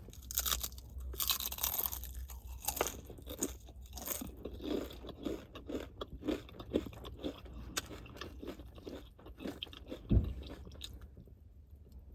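A person crunching and chewing a bite of a footlong sandwich topped with Doritos nacho chips, close to the microphone: many crisp crunches that thin out toward the end, with one dull thump near the end.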